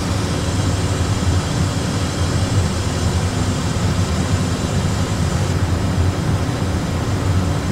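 Steady low rumble and hiss of an Airbus A320 flight deck in flight, as reproduced in a training simulator, with no distinct events.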